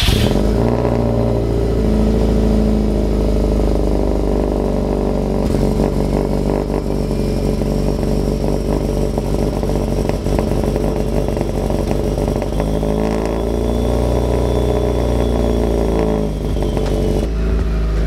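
Subaru WRX STI's modified turbocharged flat-four idling just after a cold start, heard through its Cobb cat-back exhaust and custom V-band downpipe and crossover pipework. The exhaust note is steady, and the idle speed wavers briefly about three-quarters of the way through.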